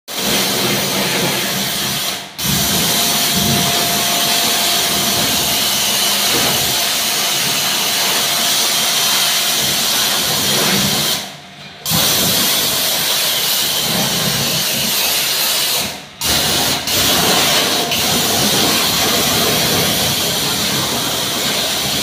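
Pressure washer running, its water jet spraying onto the coil fins of a window air conditioner. The steady noise cuts out briefly about four times, when the spraying stops for a moment.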